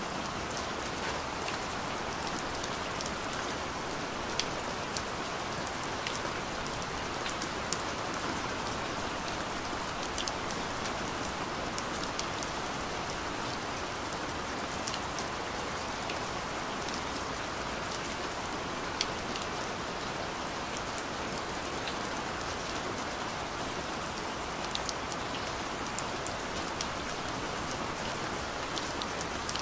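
Steady rain falling, with many scattered sharp ticks of single drops striking close by.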